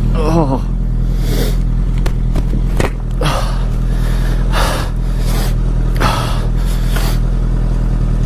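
Honda CBR sportbike engine idling steadily, with the rider's short exclamation near the start and repeated heavy breaths inside the helmet.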